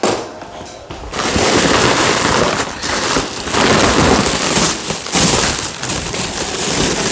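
Silver plastic protective wrapping being pulled off and crumpled by hand: loud, continuous crinkling and rustling that starts about a second in.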